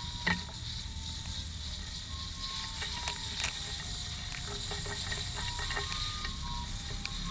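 Metal motorcycle roller chain clicking and rattling, irregular link-on-link clicks with brief ringing, as the chain is handled while being washed.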